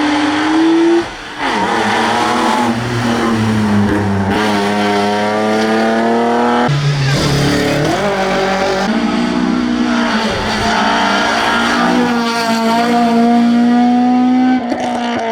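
Classic rally car engine at high revs on a tarmac stage, its pitch climbing through each gear and dropping sharply at the shifts, about a second and a half in and again near the middle.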